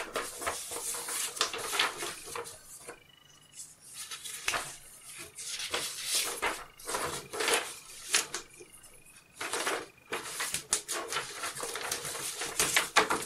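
Folded sheets of paper rustling and crackling as they are handled, pulled apart and gathered back into a stack, in short bursts with a couple of brief pauses.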